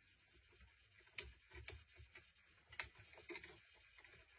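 Near silence broken by a handful of faint, scattered clicks and taps as a small plastic 3D-printed part is handled and a metal binder clip is fitted to it.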